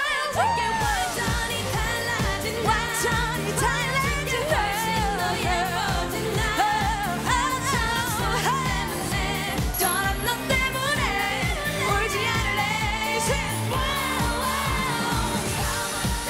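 A Korean pop song performed live: a woman sings the lead vocal into a microphone over loud backing music with a steady dance beat.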